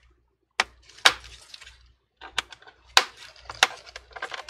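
A pry tool worked into the seam of a plastic laptop case: a run of sharp clicks and scrapes, about six of them, the loudest about a second in.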